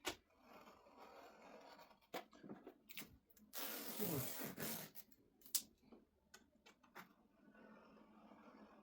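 Vinyl wrap film being handled and rubbed down by hand: soft rubbing and crinkling with scattered clicks, and a louder rubbing sound of over a second about three and a half seconds in.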